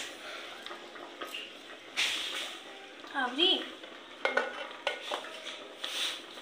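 A metal ladle stirring and scraping in an aluminium pot of rice pudding, with light clinks and knocks of plastic containers, lids and a bowl being handled. About halfway through comes a short wavering pitched sound.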